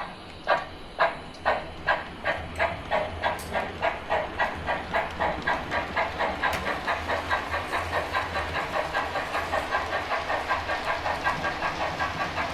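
Steam locomotive pulling away, its exhaust chuffs speeding up from about two a second to four or five a second and then running on evenly, over a faint low rumble.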